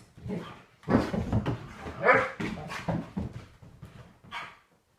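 A Doberman barking and whining in play, a run of irregular short vocal bursts that are loudest in the first half and thin out near the end.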